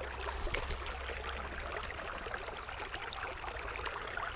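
Shallow creek water running over rocks, a steady low rush, with a steady high-pitched whine running underneath.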